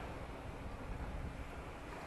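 Surf on the beach below, heard as a low, even wash in the lull after a breaker, with wind rumbling on the microphone.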